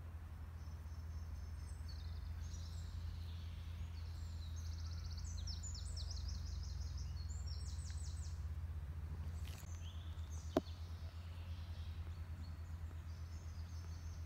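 Outdoor ambience: a steady low rumble under high-pitched chirping notes that run into a fast trill in the middle, then one sharp click.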